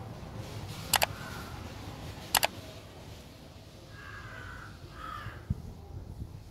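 Two sharp double clicks about a second and a half apart, then a bird calls twice in the background, over a low steady hum.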